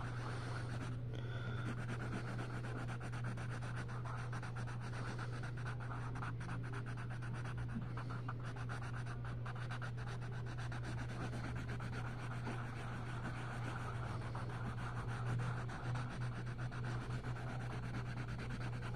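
Colored pencil scratching on paper in quick small strokes as a flower is coloured in, over a steady low hum.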